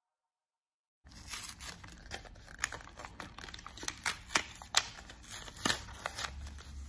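A cardboard-and-plastic blister pack being torn open by hand: paperboard ripping and crinkling, broken by many sharp snaps and clicks. It starts about a second in, after silence.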